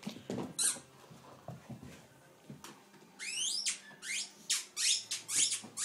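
Squeaky ball squeaking as a dog chews it: one squeak about half a second in, then a quick run of short squeaks, sliding in pitch, through the second half.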